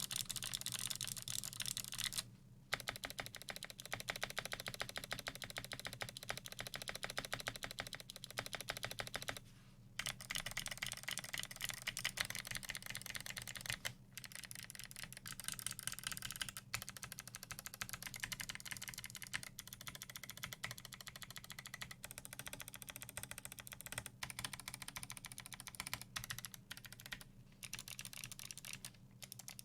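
Continuous typing on a custom Melody96 mechanical keyboard: lubed Kailh Speed Bronze switches in an aluminium plate with PBT dye-sub keycaps, a rapid, steady run of key clacks broken by short pauses every few seconds.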